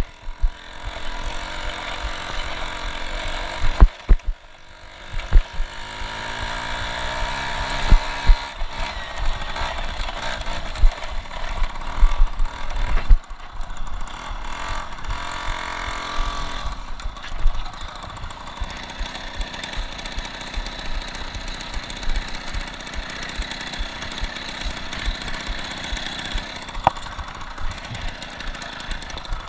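Polini-tuned Piaggio Ciao moped's small two-stroke engine running under way, its pitch rising and falling with the throttle, with scattered knocks and jolts from the ride.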